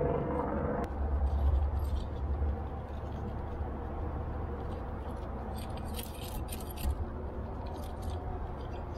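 Metal climbing gear on a harness clinking in a few short clusters, mostly around six to seven seconds in, over a steady low rumble.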